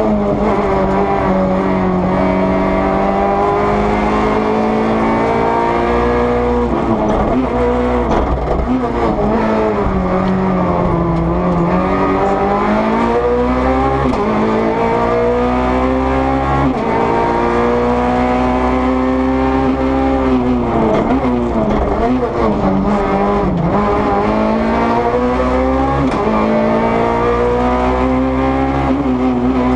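In-cabin sound of a Peugeot 208 R2 rally car's naturally aspirated 1.6-litre four-cylinder engine driven flat out. The revs climb and fall again and again as it changes gear and brakes for corners.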